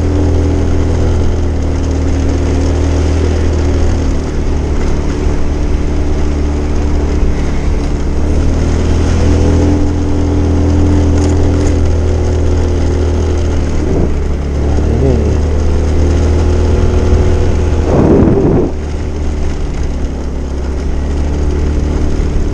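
Motorcycle engine running steadily while riding, a continuous low drone mixed with wind and road noise on the microphone. A brief louder burst comes near the end, after which it is slightly quieter.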